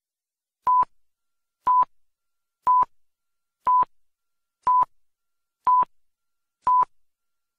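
Countdown timer beeps: a short, same-pitched beep once a second, seven times, ticking off the seconds of an on-screen countdown.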